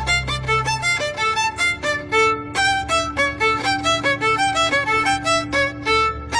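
Music: a fast, lively violin tune of short, quick notes over a sustained low bass note.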